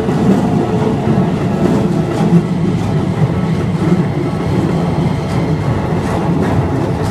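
A Keikyu electric train running past close by, a steady rumble with faint clicks of the wheels over the rail joints.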